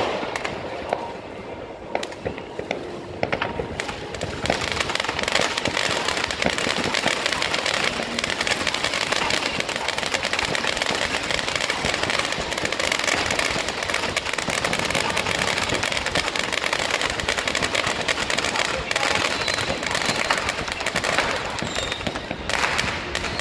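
Ground fireworks crackling: scattered sharp cracks at first, then from about four seconds in a dense, unbroken crackle of rapid small reports.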